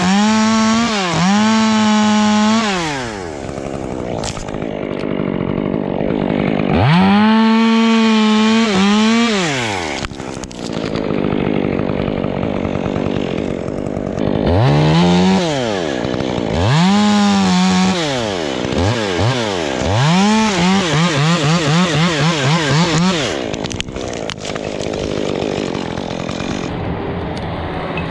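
Two-stroke chainsaw revving to full throttle in repeated bursts of one to three seconds, dropping back to a lower running note between them. In one burst near the end, the high pitch wavers rapidly.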